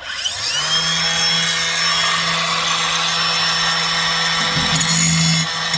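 Electric angle grinder spinning up with a rising whine, then grinding on metal with a steady, loud rasp.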